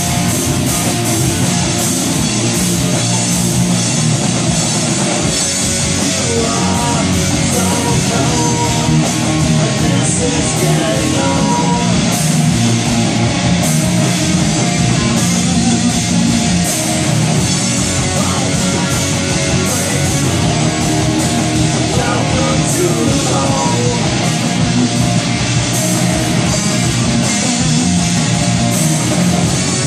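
Rock band playing loud and continuously on drum kit and electric guitars.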